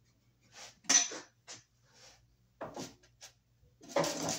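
Hand tools and hardware clinking against a steel electrical box while a bonding screw is fitted: a string of short, irregular metallic clicks and clatters, loudest about a second in and again near the end.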